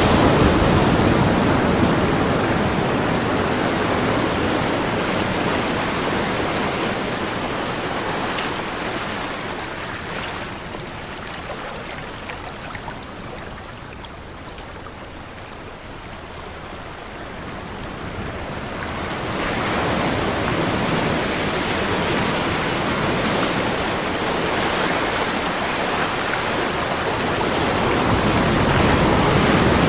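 Ocean surf: a steady rush of waves that eases off in the middle and swells again toward the end.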